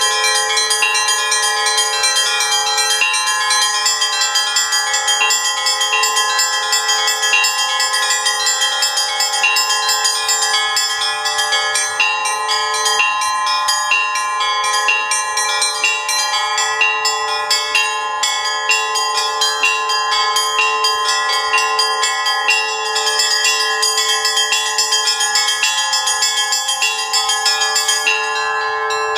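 Russian-style church bell ringing (zvon): a set of bells struck in a fast, continuous peal. Small high bells chime rapidly over the long, steady ringing tones of the larger bells.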